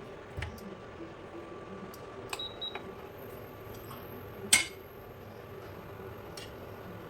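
Light clicks and clinks of kitchen utensils and containers over a steady low hum, with one sharper click a little past halfway.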